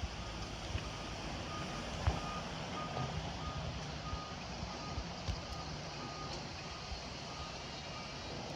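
Reversing alarm of a construction vehicle on a landfill site, beeping about twice a second over strong wind buffeting the microphone.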